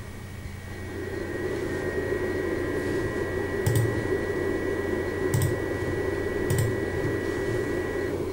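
TerraMaster F2 NAS cooling fan, miked close to the rear of its aluminium case, spinning up to its maximum setting about a second in: a steady rushing with a high whine on top, which cuts off near the end. A few sharp clicks sound over it.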